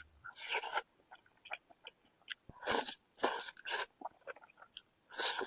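Close-up mouth sounds of someone eating noodles: five short, hissy slurps with small wet chewing clicks in between.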